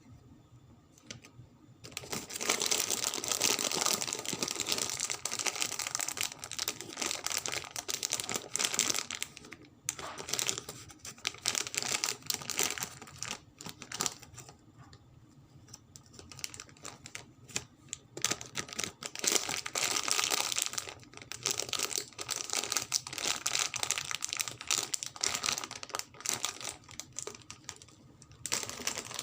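Plastic candy wrappers crinkling and tearing as sweet packets are handled and opened, in bursts of dense crackling with short pauses between them.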